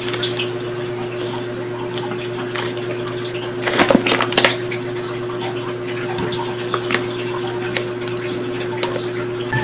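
A vacuum-packed brick of raw white rice in clear plastic being handled and turned over: scattered crinkles and taps, with a louder cluster about four seconds in. A steady electrical hum runs underneath.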